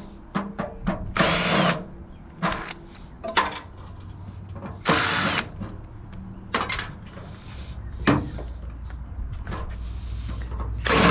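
Power drill run in three short bursts of about half a second each, with clicks and knocks of metal parts between, while a gas hot water unit is taken apart for scrap.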